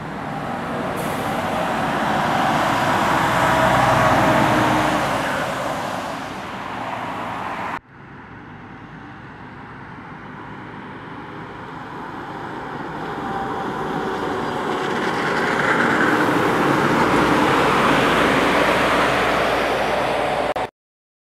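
Two Scania trucks driving past on a wet road, engine and tyre noise each time swelling to its loudest and then easing off. There is an abrupt cut a little under eight seconds in, and the sound stops suddenly near the end.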